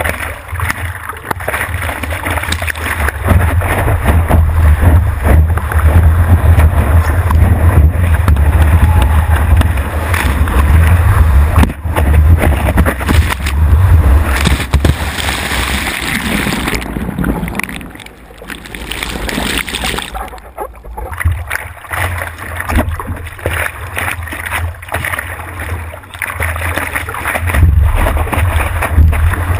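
Water rushing and splashing around a stand-up paddleboard riding a wave, heard up close from a camera on the board's nose, with heavy wind rumble on the microphone. Just past the middle the sound drops and goes dull for a few seconds, then the rush returns.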